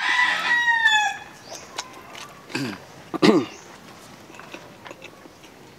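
A rooster crowing: the held, high call dips in pitch and ends about a second in. Two short, low vocal sounds follow a little later.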